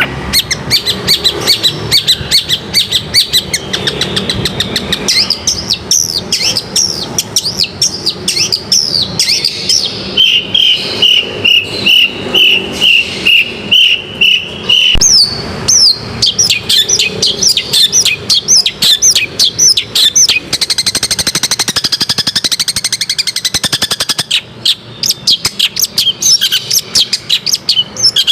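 Long-tailed shrike (cendet) singing a fast, chattering song of sharp down-slurred notes. In the middle it delivers a run of evenly repeated lower notes, about three a second.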